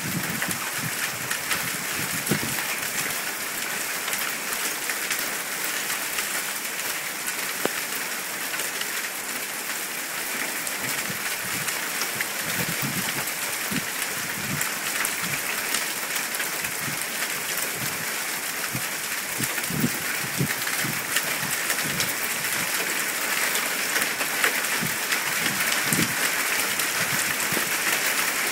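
Small hailstones pelting down onto a mulch bed: a dense, steady patter of fine ticks with scattered duller knocks, growing a little heavier near the end.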